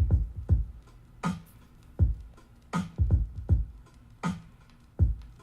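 Electronic background music with a slow, steady drum-machine beat: low kick thumps and a sharp snare-like hit about every second and a half.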